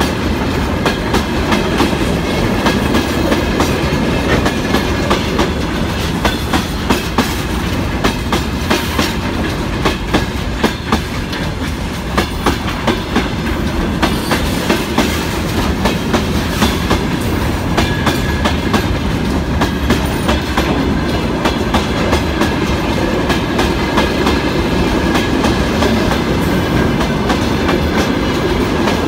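Freight train of side-dump wagons rolling past close by: the steel wheels rumble and clatter over rail joints in a dense, steady run of clicks, with a thin steady ringing tone above the rumble.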